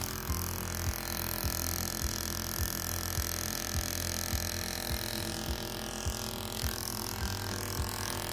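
Background music with a steady beat, a little under two beats a second, over sustained chords.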